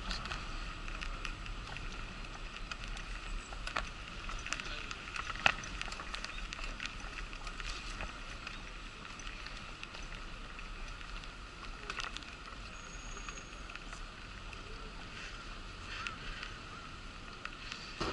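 Wheelchair rolling over paving: a steady running noise with scattered clicks and knocks from bumps in the surface, the sharpest about five and a half seconds in.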